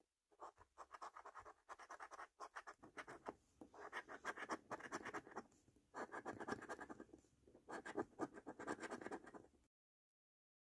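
A coin scratching the coating off a scratchcard in quick back-and-forth strokes, in several bursts with short pauses between them. It stops suddenly near the end.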